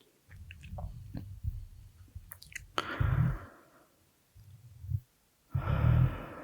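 Close-miked heavy breathing with mouth sounds: small wet mouth clicks and lip smacks, then two long, deep breaths, about three seconds in and near the end, with a short breath between them.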